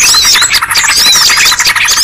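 A dense chorus of many small birds chirping, trilling and whistling at once, with rapid repeated notes under quick rising and falling whistles. It is a mixed-species bird-lure (pikat) call recording.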